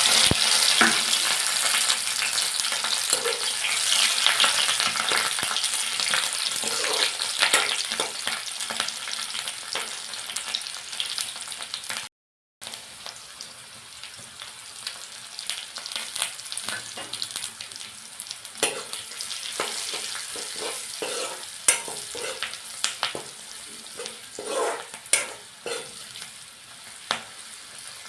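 Food frying in a hot pan, a loud, steady sizzle. After a short break about twelve seconds in, the sizzle is quieter, with repeated scrapes and clacks of a utensil stirring the food in the pan.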